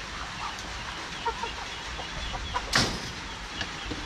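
Free-range native chickens clucking in short, scattered calls around their feed, with one short, loud scraping noise about three seconds in.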